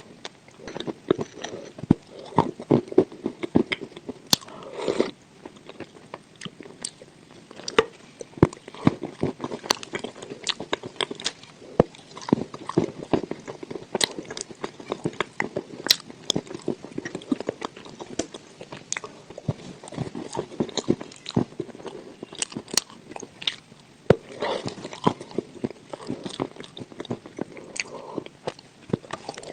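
Close-up biting and chewing of dry edible clay: many sharp, irregular crunches and cracks as pieces break between the teeth, with wet chewing in between.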